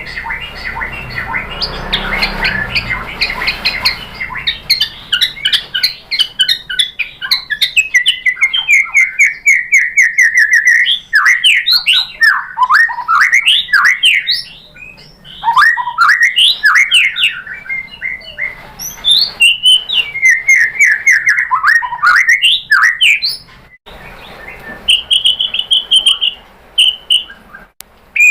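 White-rumped shama (murai batu) singing a long, varied song: fast runs of repeated notes, sweeping whistles and chattering phrases, with a rough noisy sound in the first few seconds and a held high whistle near the end.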